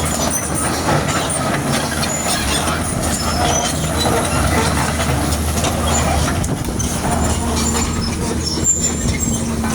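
Kobelco excavator running steadily, with short high squeaks and clanks from its steel tracks as it moves.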